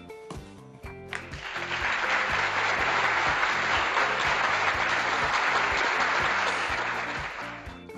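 Applause, swelling in about a second in and fading out near the end, over background music with a steady beat.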